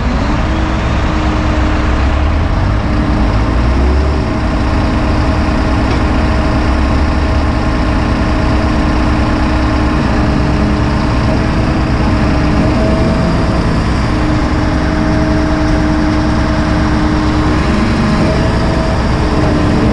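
Tadano ATF 180G-5 all-terrain crane's diesel engine running steadily at idle, heard close beside the carrier, with a steady hum over the low rumble.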